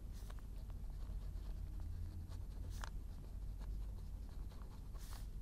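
Ballpoint pen writing on a sheet of paper: faint, quick scratching strokes, with a low steady hum underneath.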